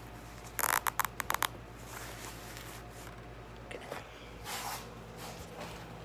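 A quick series of rasping scrapes starting about half a second in, then a softer rustle near the middle, as a bike repair-kit bag is fastened onto the frame.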